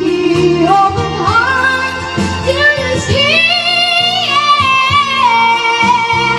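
Music with a high singing voice that slides up between long held notes over a steady accompaniment.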